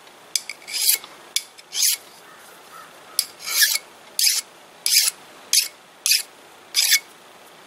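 Hand file rasping across a metal lathe part in about ten short, unevenly spaced strokes, smoothing away burrs and raised metal.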